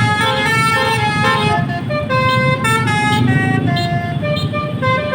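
Bus 'telolet' multi-tone air horn of the Basuri type playing a tune of short held notes that step up and down, over a low rumble of engine and street noise.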